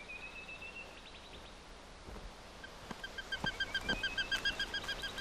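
Eagle calls: a thin, slightly rising whistle, then a fast run of high, piping notes, about five or six a second, growing louder.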